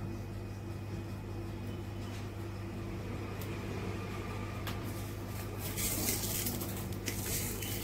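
Steady low electrical hum of a running appliance, with a few light clicks; from about five seconds in, brushing and rubbing noise as a hand handles the phone close to its microphone.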